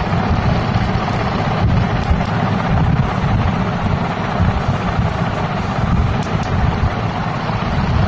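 A small DC motor spinning a homemade mini fan's plastic blades, with the airflow blowing on the microphone as a steady, mostly low rushing noise.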